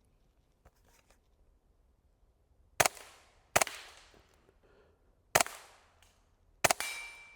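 Suppressed HK G36 .22 LR rifle with a JK Armament suppressor firing subsonic CCI standard-velocity rounds: four sharp shots at uneven spacing, starting a little under three seconds in, each with a short echoing tail.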